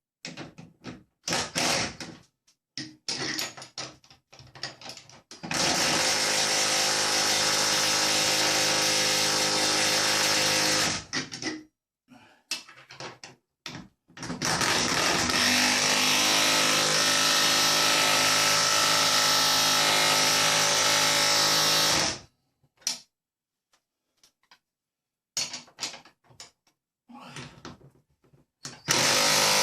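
Power drill running in two long steady runs of several seconds each, with short bursts and knocks between, and starting up again near the end.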